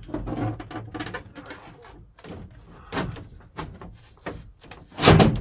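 A thin, flexible plastic van ceiling panel being bent and pushed up into the roof frame: a run of scraping, rustling knocks as it rubs against the frame, with one loud thump about five seconds in as it is pressed into place.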